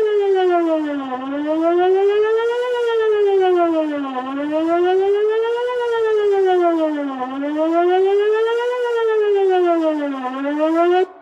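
Outdoor emergency warning siren sounding a wail test tone. Its pitch slides smoothly up and down, one rise and fall about every three seconds, and it cuts off abruptly near the end with a brief echo trailing away.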